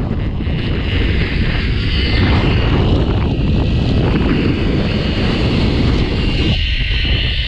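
Wind buffeting the microphone: a loud, uneven low rumble with a hiss above it that swells a couple of times.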